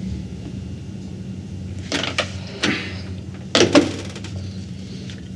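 A desk telephone's handset being handled and set down: a few sharp knocks and clicks about two and three and a half seconds in, over a low steady hum.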